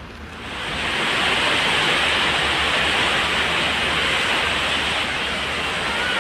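Heavy rain pouring steadily onto a concrete street and splashing into water-filled basins, fading in over the first second.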